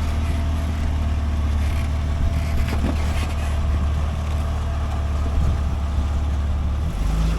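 Off-road rock crawler's engine running steadily at low revs, a continuous low hum with a few faint knocks over it.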